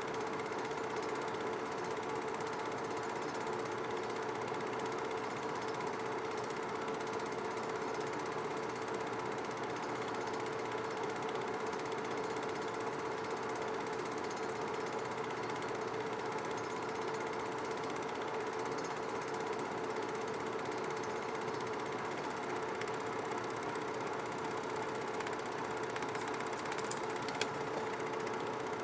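Film projector running: a steady mechanical whir and fast clatter with a constant hum, and one small click near the end.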